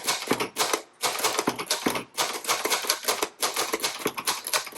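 1961 Royal Signet manual portable typewriter being typed on quickly: rapid keystrokes of the type bars striking the platen. The clicks come in runs with short pauses between them.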